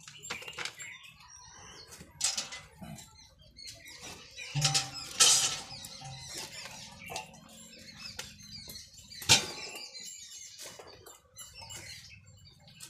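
Hand-milking a cow: streams of milk squirting from the teats into a bucket of frothy milk, a string of short hissing swishes with each pull. A sharp knock about nine seconds in.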